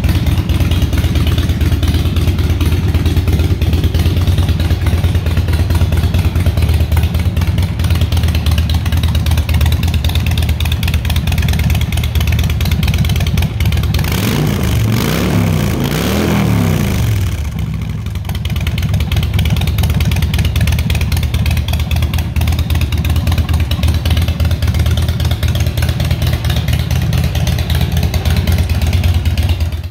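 Harley-Davidson Dyna Low Rider's air-cooled Twin Cam 103 V-twin idling steadily. It is briefly revved up and back down about halfway through, then settles to idle again.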